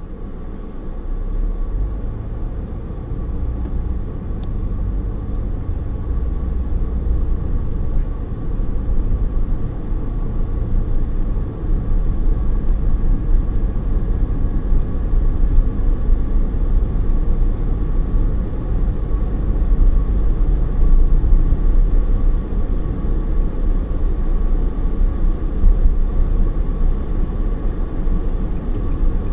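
Car being driven, heard from inside the cabin: a steady low rumble of road and engine noise that comes in over the first second or two and then holds.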